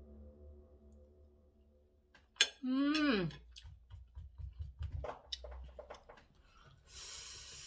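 A woman's wordless exclamation about two and a half seconds in, its pitch sliding down, then light clicks of a fork and spoon on a plate. Near the end comes a hissing breath, her reaction to the very hot chili in the food.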